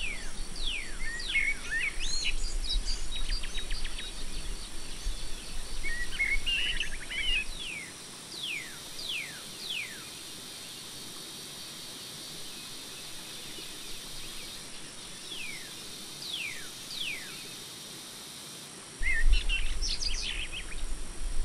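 Birds chirping, with repeated quick downward-sliding whistled calls and short twittering runs over a steady background hiss. A low rumble underneath drops out about eight seconds in and comes back near the end.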